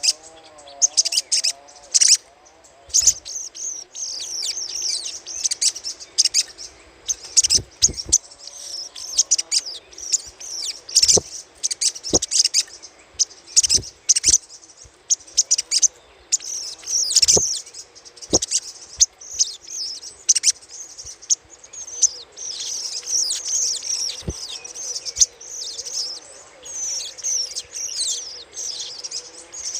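Little spiderhunter (sogok ontong) giving its rapid, chattering 'crecetan' call: a dense run of quick high chirps, broken by sharp click-like notes.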